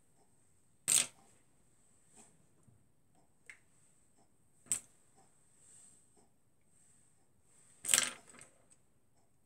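Makeup compacts and brushes being handled and put down: a few sharp plastic clicks and taps, the loudest about a second in, near five seconds and about eight seconds in, the last followed by a brief rattle of smaller taps.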